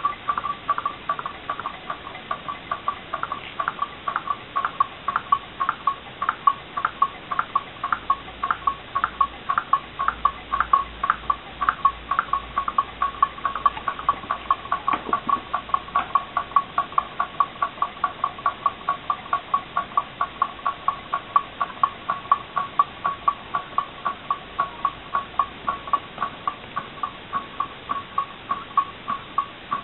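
Homemade Stirling engine running steadily, its mechanism clicking at about four clicks a second, each click ringing briefly.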